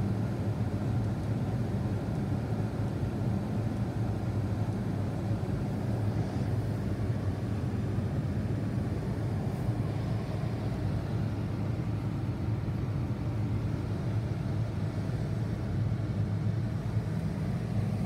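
Mercedes A-Class engine idling, a steady low hum heard from inside the cabin.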